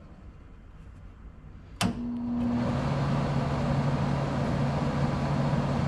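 Hobart IronMan 210 MIG welder switched on: a sharp click about two seconds in, then its fan and hum start up and run steadily.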